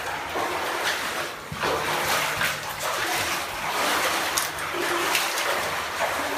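Water splashing and sloshing in uneven surges, about one a second, like steps wading through shallow water in a mine passage.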